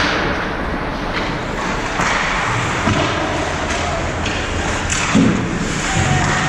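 Ice hockey play in an arena: a steady scraping haze of skates with several sharp knocks of sticks and puck, and a heavier thud just after five seconds in, like a body or puck hitting the boards.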